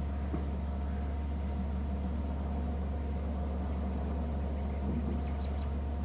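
A steady low hum, with a few faint, short high-pitched bird chirps about three seconds in and again near the end.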